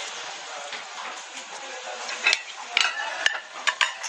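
A handful of light clicks and taps from small hard objects on a tabletop, over a faint steady hiss. The clicks come close together in the second half.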